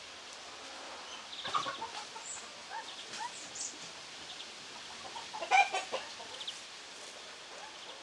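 Domestic chickens clucking, with two louder bouts of clucking about one and a half and five and a half seconds in.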